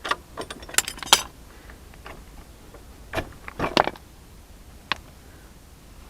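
A run of short metallic clinks and knocks, one cluster in the first second or so, another between three and four seconds in, and a single click near five seconds.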